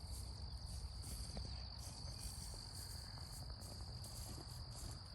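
Insects, crickets by their kind of sound, trilling in a field: one steady high drone with pulsing chirps above it, over a low rumble.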